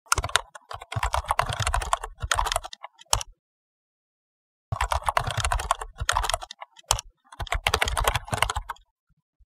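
Typing sound effect: rapid keystroke clicks in a run of about three seconds, a pause of about a second and a half, then a second run of about four seconds with brief breaks.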